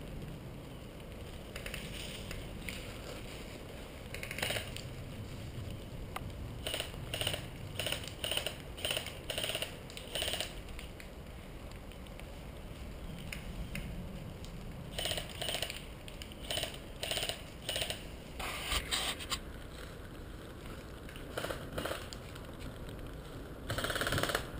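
Footsteps crunching through dry leaves and brush, in uneven runs of steps with pauses between them.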